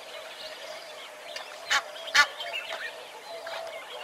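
Two loud, short bird calls about half a second apart, near the middle, over scattered chirping of small birds.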